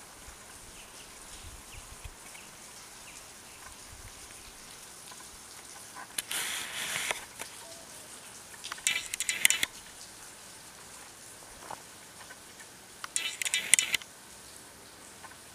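Three short bursts of crackling, rustling noise, each about a second long, over a faint steady background hiss.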